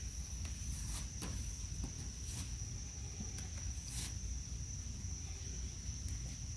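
Steady high-pitched insect trill held throughout, with a few faint snaps and rustles of tomato plants being handled as fruit is picked.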